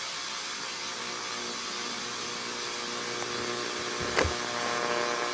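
Steady radio hiss with an electrical hum, and a single click about four seconds in.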